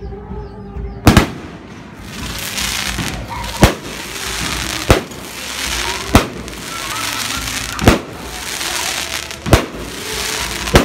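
Aerial fireworks going off: seven sharp bangs of shells bursting, one every one to two and a half seconds, with a continuous crackling hiss between them from about two seconds in.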